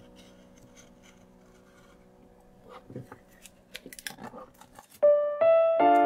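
Plastic wrapping on a wooden collection case crackling and clicking as a craft knife cuts it open, an irregular run of small crackles for about two seconds in the middle, over faint background music. Loud music with a clear melody comes in about five seconds in and is the loudest thing.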